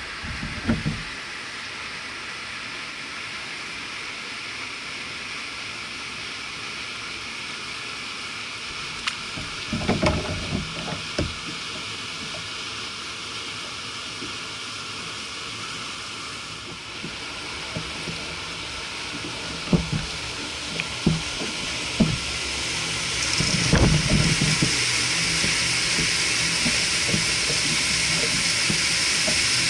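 Wind blowing across the microphone: a steady hiss that grows louder near the end, with a few scattered knocks and thumps from the rod and kayak being handled.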